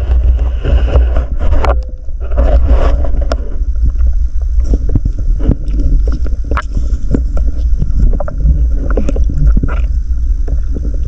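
Underwater noise through a camera housing: a heavy low rumble of water moving against the housing, with frequent sharp clicks and knocks and a faint steady high whine.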